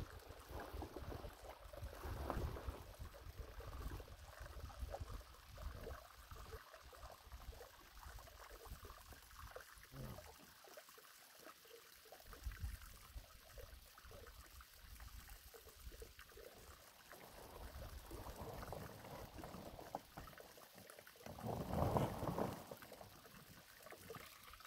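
Large black plastic pond liner rustling and crinkling as it is dragged and shifted over the ground, with a louder stretch of crackling a little before the end. Wind rumbles on the microphone underneath.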